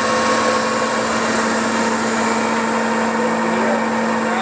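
Clausing 1250 Magnum engine lathe running under its 30 hp main motor, spindle turning at 200 RPM with the cross slide on power feed: a steady hum with a constant tone.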